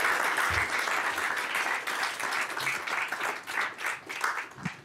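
Audience applause, dense at first, then thinning into scattered individual claps and dying away near the end.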